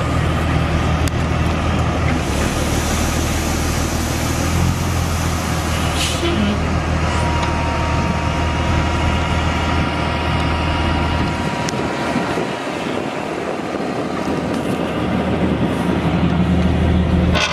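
The 1997 International 8100's Cummins M11 10.8-litre straight-six turbo diesel running with a steady low drone. About six seconds in there is a short hiss, followed by a steady high whine for a few seconds.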